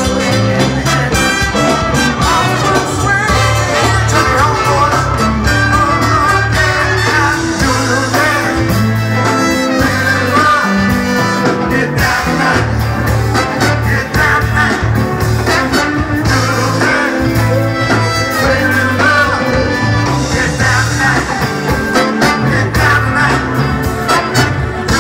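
Live funk/R&B band playing a medley: horn section of saxophone, trumpet and trombone over drum kit, congas and a driving, repeating bass line, with a singer.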